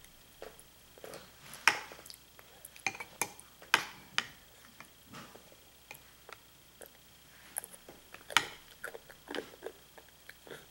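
A small metal spoon clinking and tapping against a cereal bowl in irregular knocks as a toddler eats, the sharpest knocks about two, four and eight seconds in.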